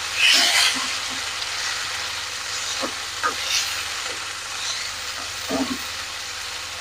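Chopped tomatoes, garlic and chilli sizzling in hot oil in a granite-coated wok. A steady sizzle runs under the scrape of a wooden spatula stirring them, with a louder stroke just after the start and a few soft knocks of the spatula against the pan.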